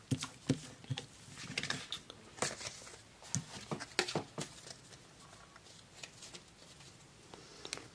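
Tarot cards being gathered up off a tabletop and handled: scattered light taps, slides and flicks of card stock, thinning out after about four and a half seconds.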